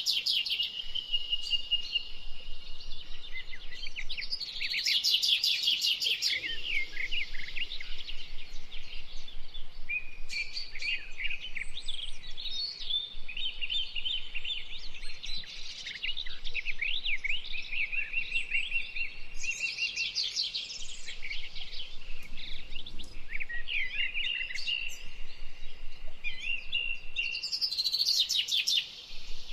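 A chorus of several birds chirping and calling at once, with short whistles and bursts of fast trills throughout.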